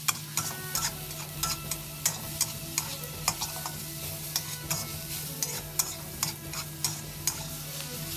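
Metal spatula scraping and clanking against a wok in quick stir-fry strokes, about two or three a second, over the steady sizzle of vegetables and shrimp frying in the hot pan.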